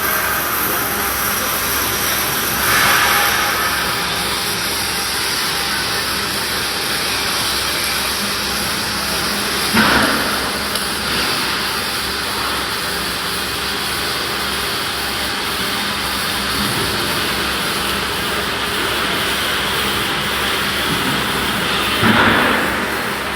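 Robotic MIG welding arc on carbon steel, a steady loud hiss and crackle with a faint hum under it. It surges louder briefly three times: near the start, about ten seconds in, and near the end.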